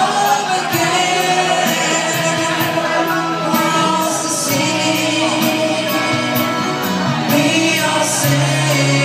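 Live pop ballad: a singer holding long notes over a band accompaniment with sustained bass notes and a steady high tick about twice a second.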